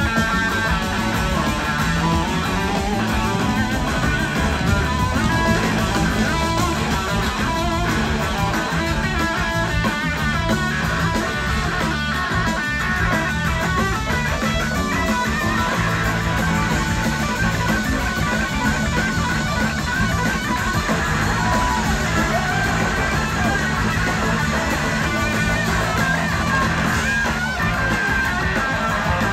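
Live rock band playing, with electric guitar to the fore over drums, bass and keyboards. The level is steady and loud throughout, heard from the audience.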